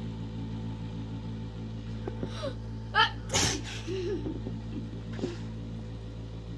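A person sneezing once: a short pitched 'ah' build-up about three seconds in, then a single loud sneeze burst. A few small voice sounds follow, over a steady low hum.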